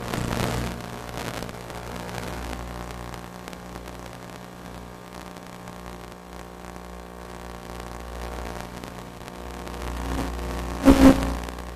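Steady hiss with a low hum of several steady tones, the audio of an analog FPV video downlink. Near the end two short, loud crackles come close together.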